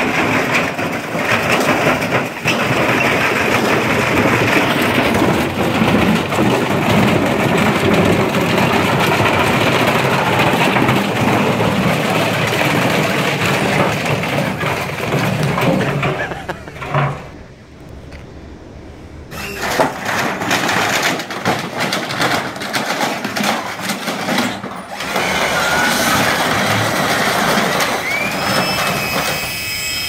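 Heavy machinery running with a loud, steady noise, muffled for a couple of seconds past the middle. It returns with scattered clicks and a short rising whine near the end.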